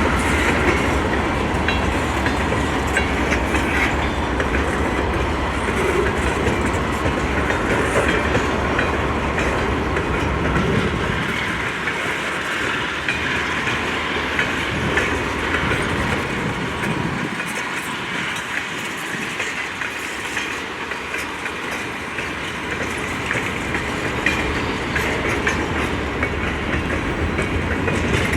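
A train rolling past on the rails, with steady wheel noise and a clickety-clack over the rail joints. Its deep rumble fades about a third of the way through while the rolling noise goes on.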